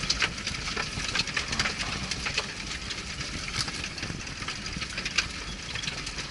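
Off-road vehicle's engine running with a steady low rumble. Frequent short knocks and rattles come through over it.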